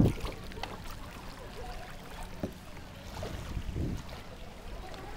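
Faint water sounds around a kayak: small splashes and trickling from paddling, with a few soft short knocks.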